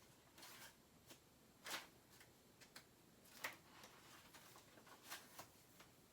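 Near silence: quiet room tone with a few faint soft clicks and rustles, the clearest about two seconds in and again around three and a half seconds in.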